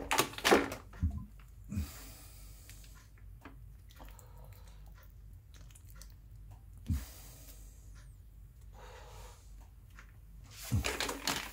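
Hands handling the plastic parts of a reverse-osmosis filter: a few light knocks and short bits of rustling, quiet in between.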